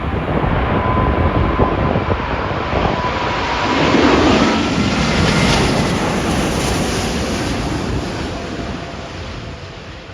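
Jet airliner passing low overhead on final approach to land, its engine whine sliding down in pitch as it goes by, loudest about four seconds in and then fading away. Gusty wind buffets the microphone.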